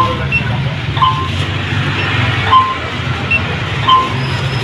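Woven plastic sack rustling and crinkling as it is handled, over a steady low engine hum, with short sharp beeps about once a second.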